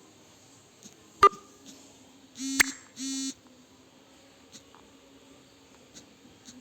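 A sharp click, then two short electronic beeps about half a second apart, each lasting a fraction of a second.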